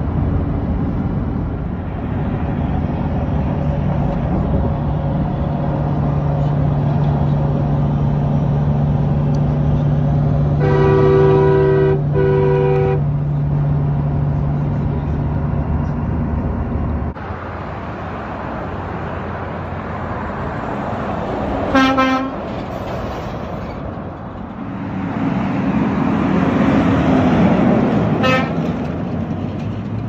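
Semi-truck air horn blown in two blasts over steady highway road and engine noise heard from inside a moving vehicle. Later a short horn toot, and a truck's engine swells and fades as it passes.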